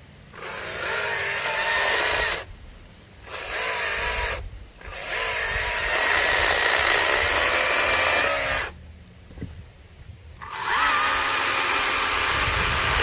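Greenworks GS110 40-volt battery top-handle chainsaw cutting branch wood in four runs with short stops between, its electric motor whining. The motor's pitch shifts from run to run, the last run holding a steadier whine: it seems to have two motor pitches.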